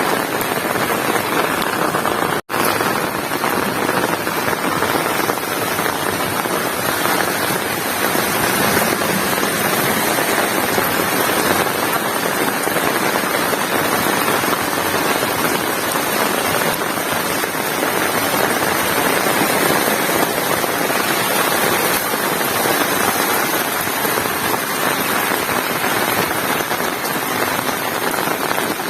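Heavy rain falling steadily, a dense even hiss, broken by a momentary gap about two and a half seconds in.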